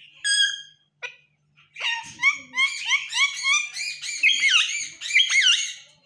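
Rose-ringed parakeet giving one short, sharp whistled call, then about four seconds of fast chatter: a run of quick chirps rising and falling in pitch, typical of a pet parakeet babbling as it tries to talk.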